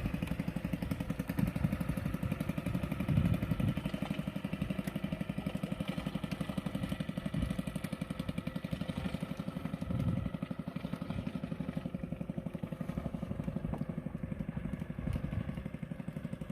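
Small boat engine running steadily, with a rapid, even pulse.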